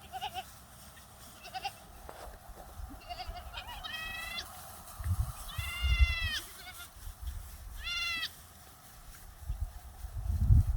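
Goats bleating: a few short, faint calls, then three clear bleats, the middle one the longest at about a second. Low rumbling bursts come in under the middle bleat and again near the end.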